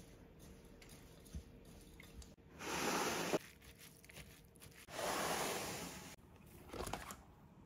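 Wet seed dough of chia, sesame and pumpkin seeds being stirred and scraped with a spoon: two gritty, wet scraping passes, each about a second long, with a few light taps near the end.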